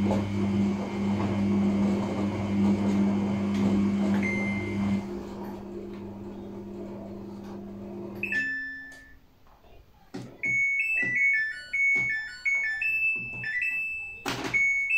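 Samsung front-loading washing machine's drum motor humming steadily as it tumbles a soapy load, stopping about eight seconds in. A single beep follows, then from about ten seconds in the machine's control panel plays a short electronic tune of stepped chiming notes.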